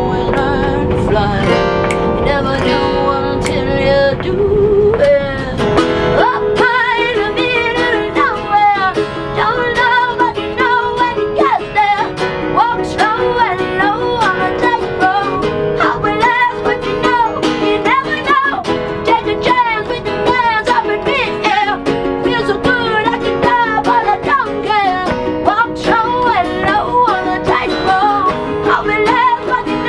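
Live acoustic song: a woman singing with a wavering, vibrato-laden voice over a strummed ukulele and an acoustic guitar.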